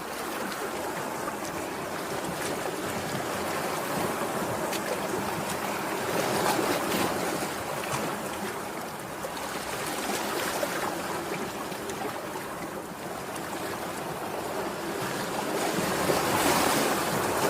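Sea waves washing onto the shore: a steady rush that swells louder three times as waves come in.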